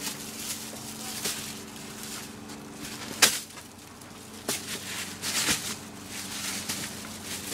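A hammer striking and ripping apart a white lamp shade: scattered knocks and tearing rasps, the loudest a single sharp hit about three seconds in, over a steady low hum.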